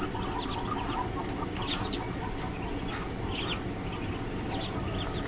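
A brood of newly hatched ducklings peeping, many short high calls overlapping one another.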